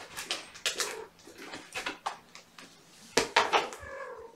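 Handling noises: a run of short, sharp clicks, taps and scrapes of objects being moved about, the loudest cluster a little after three seconds in.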